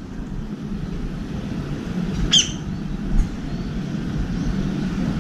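Steady low rumble of city road traffic, with one short, sharp bird call about two seconds in and a fainter one just after.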